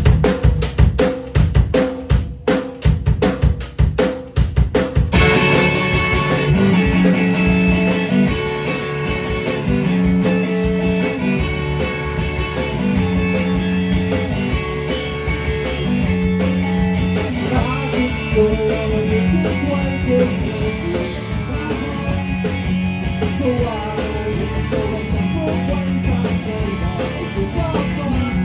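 Rock band music: a drum kit plays a beat on its own, then bass and guitars come in about five seconds in and the full band plays on.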